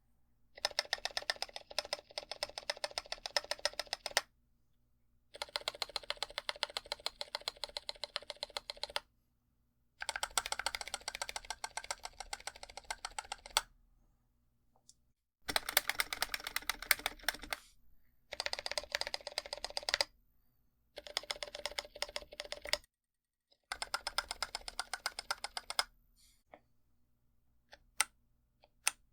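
Typing on a NovelKeys NK65 Aluminum mechanical keyboard with TTC Bluish White tactile switches, which have a muted bottom-out. The clicks come in fast runs of a few seconds with short pauses between them, then only a few single key presses near the end.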